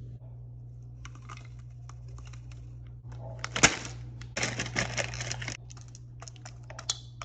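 Handling noise: a run of small clicks and rattles, with a single sharp knock about three and a half seconds in and a denser clatter just after, over a steady low hum.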